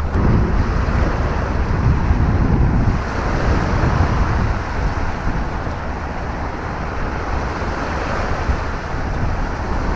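Small waves washing up on a sandy beach, with wind buffeting the microphone in a steady low rumble.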